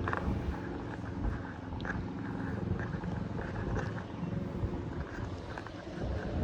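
Combine harvester running with a steady engine drone.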